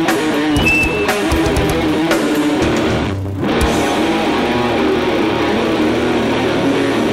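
Live thrash metal: distorted electric guitars and bass riffing over drums. About three seconds in the drums drop out and the guitars and bass carry on alone.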